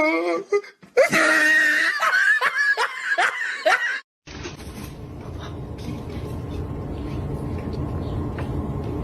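A person laughing hard in quick bursts for about three seconds. The sound then cuts out abruptly and gives way to a steady low background hum.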